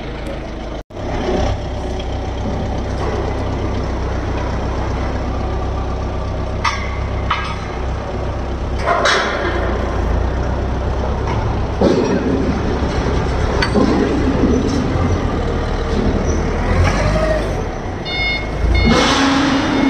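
Lonking forklift engine running steadily, with a few sharp metal knocks and clatters. Near the end its reversing alarm starts, a row of quick, evenly spaced beeps.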